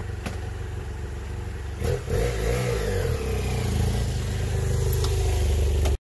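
Motorcycle engine running, with a short rev about two seconds in, then a steady run that grows slowly louder.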